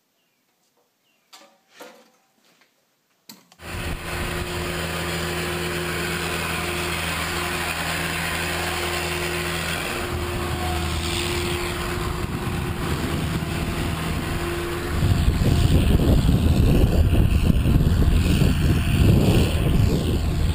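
A few faint clicks, then about three and a half seconds in the Hesston swather's engine starts up and runs steadily. About fifteen seconds in, a louder, gusting rush of wind on the microphone covers it, out in the open hayfield.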